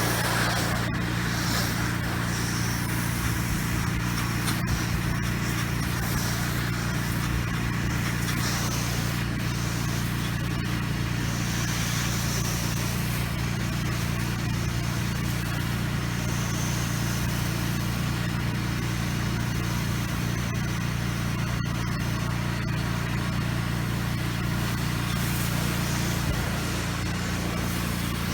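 Pressure-washer engine running steadily, with the hiss of a soft-wash tip spraying cleaning solution onto house siding.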